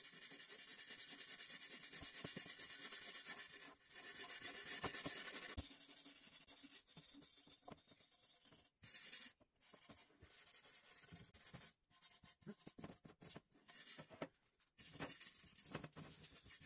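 Hand wire brush scrubbing paint off the metal tubes of a bicycle frame: steady scrubbing for the first few seconds, then shorter back-and-forth strokes with brief pauses.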